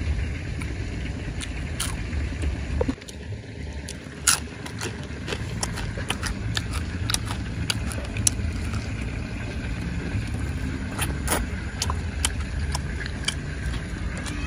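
Close-up chewing and crunching of deep-fried crispy chicken and banana chips: irregular sharp crunches over a steady low rumble.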